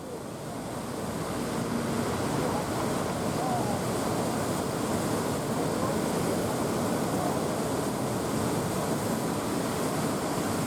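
Surf from a beach break washing steadily in the swell left by a typhoon, with wind on the microphone; it fades in over the first two seconds.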